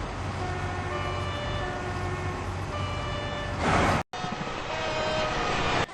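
Train horns sounding in several short blasts, each several notes together, over a low steady rumble. A loud rushing noise swells about three and a half seconds in and cuts off abruptly, and another horn note follows about a second later.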